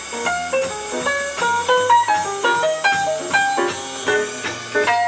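Music: a quick melody of single notes, several a second, each struck sharply and dying away, over a held low bass line.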